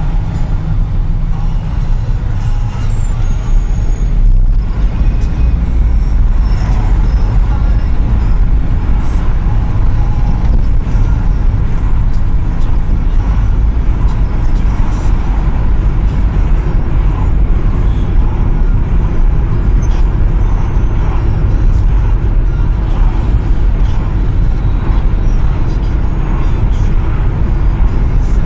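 Loud, steady low engine and road noise of a car heard from inside its cabin.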